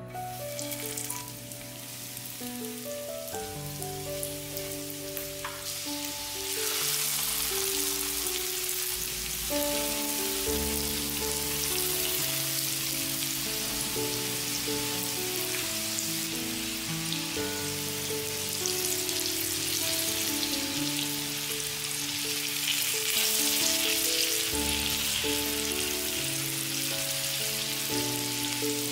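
Food sizzling as it fries in hot oil in a pan. The sizzle grows louder about six seconds in, over background piano music.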